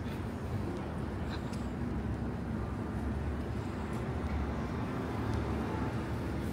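City street ambience: a steady low rumble of traffic, with a few faint clicks.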